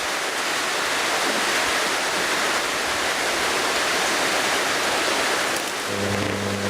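Steady rushing hiss throughout. About six seconds in, a microwave oven transformer starts a low, steady mains hum with overtones.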